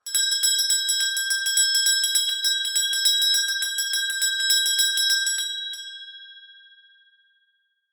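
Small Christmas handbell shaken rapidly, its clapper striking several times a second with a bright, steady ring. The shaking stops after about five and a half seconds, and the ring dies away over the next two seconds.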